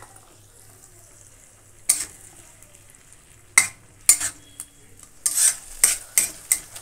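Steel spatula scraping and knocking against an iron kadai while a tomato-onion masala sizzles in oil, being fried down after a splash of water. A low sizzle at first, then single scrapes about two and three and a half seconds in, coming quicker near the end.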